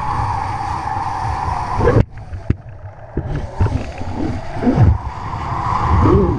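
Wind buffeting the camera and water rushing under a kiteboard planing over chop: a loud steady hiss that drops away suddenly about two seconds in, followed by low thumps and gurgles as the board slaps the water, then builds back.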